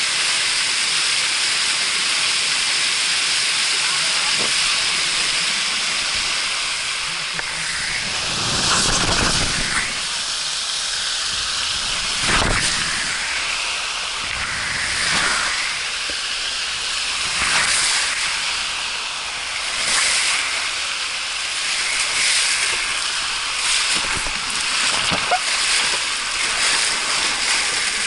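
Rushing water on a body water slide: a steady loud hiss. From about eight seconds in it swells louder every two to three seconds as the rider is carried through the banked curves.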